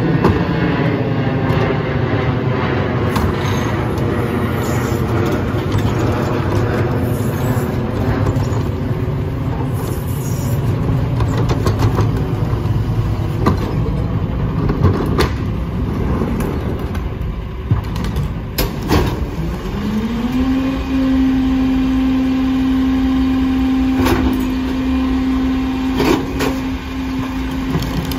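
Rear-loader garbage truck with its diesel engine slowing from a rev at the start, then idling, with several sharp clanks of plastic recycling carts against the rear loader. About twenty seconds in, the engine revs up and holds a steady high hum as the hydraulic packer runs to compact the recycling in the hopper.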